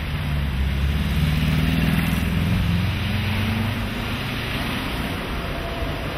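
A car driving past close by, its engine rumble swelling to its loudest about two seconds in and then easing off, over steady street traffic noise.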